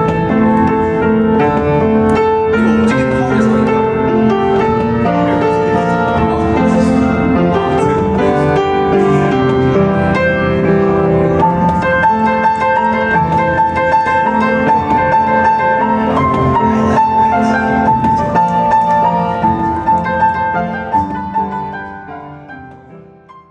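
Piano music, several notes sounding together, fading out near the end.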